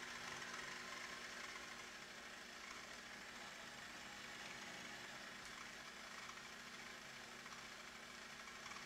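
Food processor motor running steadily, blending olive oil, garlic, cumin and salt as the first stage of hummus.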